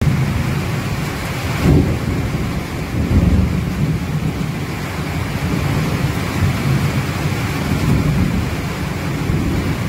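Thunder rumbling over steady heavy rain during a lightning storm, with louder swells of rumble about two seconds and three seconds in.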